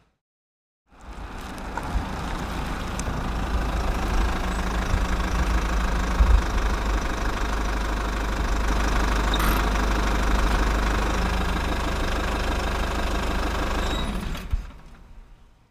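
A vehicle engine running steadily with a heavy low rumble. It fades in about a second in and fades out near the end.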